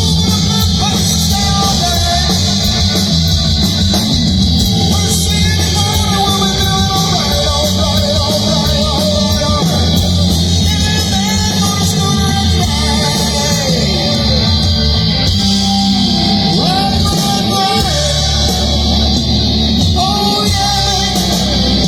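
Loud rock music with electric guitar and singing.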